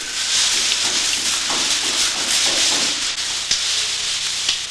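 Long dry weaving strips rustling and scraping against each other as they are worked into a mat by hand: a dense, steady hiss with a few sharp clicks.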